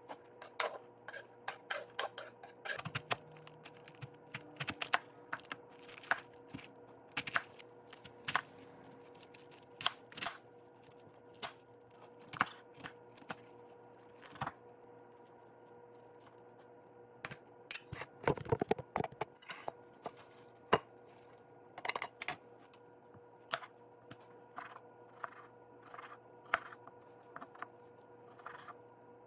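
Kitchen knife cutting vegetables on a wooden cutting board: irregular knocks of the blade on the board as cabbage and then a tomato are cut, with a denser run of knocks a little past the middle. A faint steady hum runs underneath.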